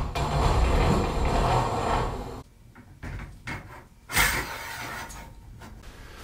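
Garage door torsion spring being slid onto its steel shaft: metal sliding and rubbing for about two seconds, then a few faint clicks and a sharper knock about four seconds in.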